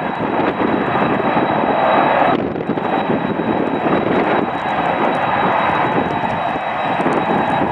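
Boeing 747-400 freighter's four GE CF6-80C2 turbofan engines running, a loud, steady jet noise with a thin high whine, easing a little about two and a half seconds in.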